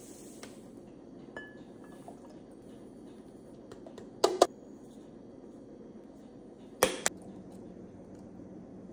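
Granulated sugar pours briefly into a plastic measuring cup, then comes a steady low room hum with sharp clinks against a glass jar, two in quick succession a little before halfway and two more about three-quarters through.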